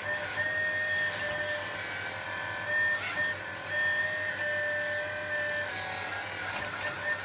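A 1/12-scale RC hydraulic excavator's pump running with a steady whine. Its pitch dips briefly a few times as the boom, arm and bucket are worked.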